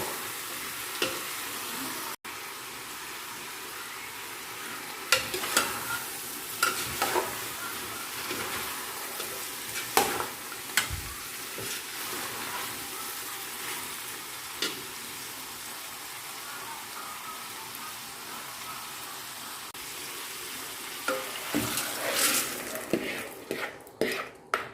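Food sizzling in a pan as a steady hiss, with occasional sharp knocks of a utensil against the pan while it is stirred, and a burst of pot and utensil clatter near the end.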